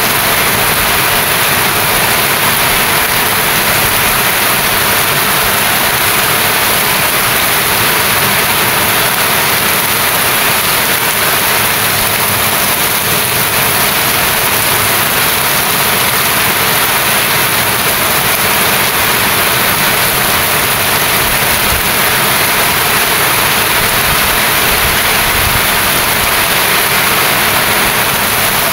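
Heavy rain falling, a steady loud hiss with no let-up.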